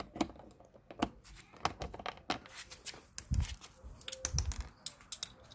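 Irregular light clicks and taps of hand tools: an Allen bit being fitted into a screwdriver and worked on the screws holding a motorcycle's plastic rear cladding. Two dull thumps come about three and four seconds in.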